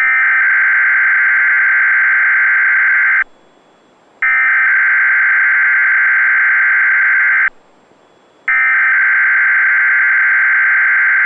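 SAME (Specific Area Message Encoding) header of an EAS Required Weekly Test on Weatheradio Canada. The digital data tones sound three times, each burst about three seconds long, with a one-second pause between bursts.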